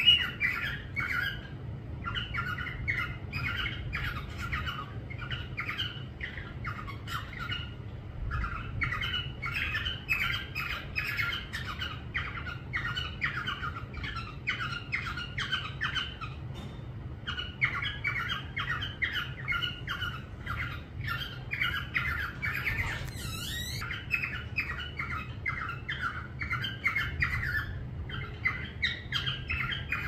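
Parrot chattering and squawking in rapid runs of short calls, broken by brief pauses, with one quick wavering whistle about two-thirds of the way through.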